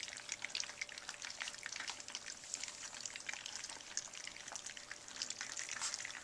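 Several spinone puppies lapping and slurping wet puppy food from a round stainless-steel feeding pan: a dense, continuous crackle of small wet licks and smacks.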